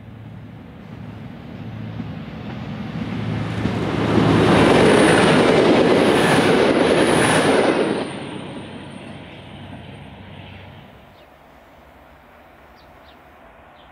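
V/Line VLocity diesel multiple unit passing at speed. A low engine drone as it approaches swells into a loud rush of wheels on rail with a thin high whine for about four seconds, then drops off quickly as the train runs away.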